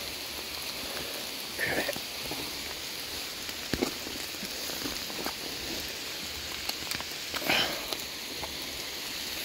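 Heavy rain falling steadily, an even hiss with a few sharp drop taps close by. Two brief louder noises break through, one about two seconds in and one near the end.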